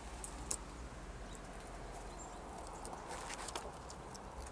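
Light clicks, taps and scratches of a Eurasian red squirrel moving about and feeding on a balcony railing and windowsill, with one sharp click about half a second in and a quick cluster of taps about three seconds in, over a steady outdoor hiss.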